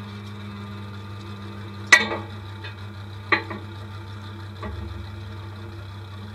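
Demolition derby truck's engine idling, heard from inside the stripped cab, with two sharp knocks about two and three and a half seconds in. The rumble gets a little louder and deeper about four and a half seconds in.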